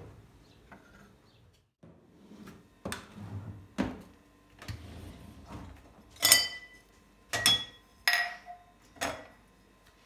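Clean glass and ceramic dishware being lifted out of a dishwasher's wire rack, clattering softly at first. Then come four sharp, ringing clinks, about a second apart, as the pieces knock against each other and the rack.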